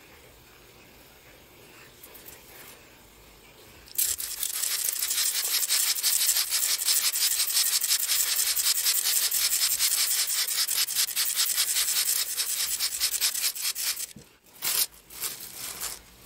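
Hand-held trigger spray bottle misting water onto sown seeds in a plastic tub. About four seconds in, a fast run of hissing squirts starts and goes on for about ten seconds, followed by a few separate squirts.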